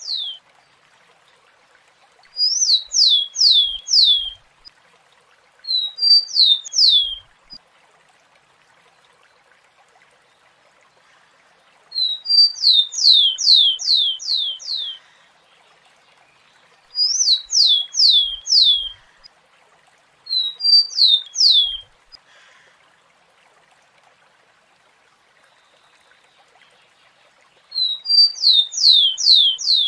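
Rufous-collared sparrow (tico-tico) singing: six separate song phrases a few seconds apart. Each phrase is one or two short high notes followed by a quick run of four to six clear whistles, each sliding down in pitch.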